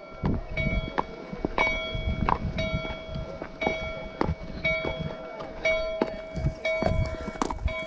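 An old church bell tolling, struck about once a second, each stroke ringing on over the next, calling people to a Sunday service. A low rumble runs underneath.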